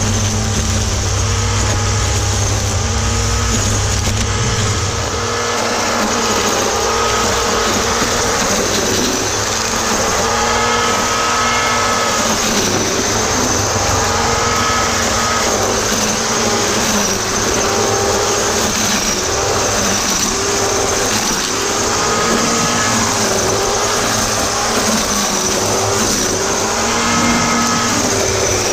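Black & Decker GL7300 700-watt electric string trimmer running and cutting grass, its motor whine repeatedly dipping and recovering in pitch as the line bites into the grass.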